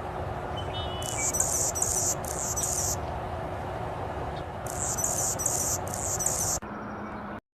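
Small bird calling in two runs of short, very high, buzzy notes, a few notes in each run, a couple of seconds apart, over a steady hiss of background noise. The sound cuts off abruptly near the end.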